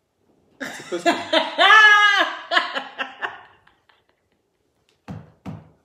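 A woman laughing loudly in a run of pulses, rising to a high drawn-out squeal about halfway through before trailing off.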